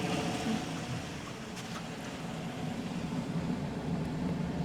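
2014 GMC Sierra 1500 pickup's engine idling steadily as it warms up after a new thermostat and coolant temperature sensor, its radiator fans no longer revving at full speed.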